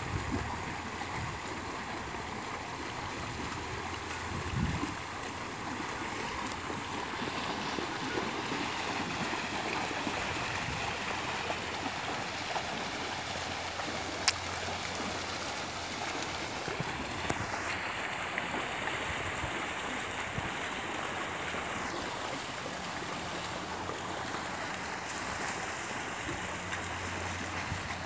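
A herd of water buffalo wading through shallow muddy water, a steady splashing of many hooves and legs in the water. One sharp click about halfway through.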